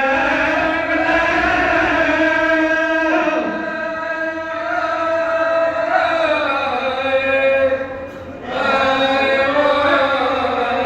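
A man's voice chanting a Pashto mourning lament (noha) for Imam Husain in long, drawn-out melodic notes, with a brief break about eight seconds in.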